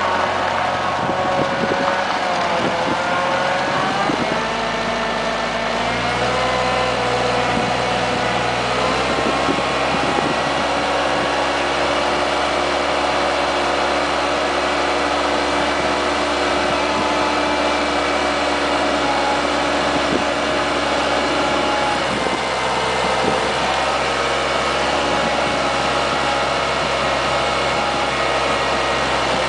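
Bobcat skid steer engine running. Its speed dips and rises over the first few seconds, then holds steady.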